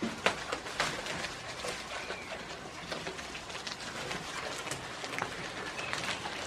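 Goats tearing leaves off leafy branches and chewing them: irregular crisp snaps, crackles and rustling of foliage and straw, the sharpest snaps in the first second.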